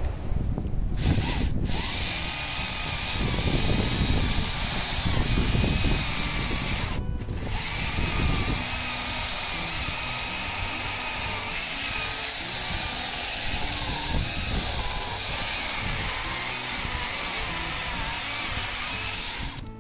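Stihl MSA 161 T battery top-handle chainsaw cutting through an oak log with the full length of its bar, a steady electric-motor whine over chain-cutting noise that sags and recovers under load.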